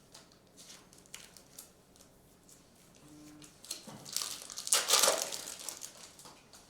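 A trading card pack's foil wrapper crinkling and tearing loudly for a second or so, about four seconds in. Before it come light clicks of cards being handled.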